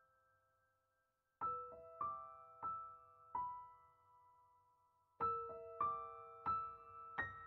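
Background piano music: slow single notes struck one after another, each ringing and fading, with a short pause about a second in.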